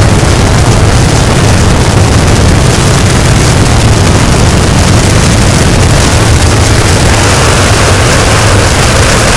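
Harsh noise wall: a dense, unbroken mass of heavily distorted static with a heavy low rumble underneath. A brighter hiss in the middle of the sound swells about seven seconds in.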